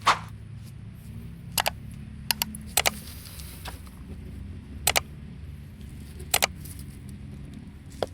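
Stray cat eating dry cat food, the kibble crunching in sharp separate clicks, often two in quick succession, every second or so over a low steady background rumble.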